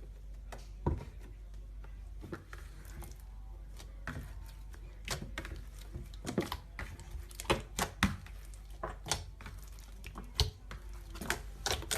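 Slime being squished and poked by hand, giving irregular sharp clicks and pops that come thicker in the second half.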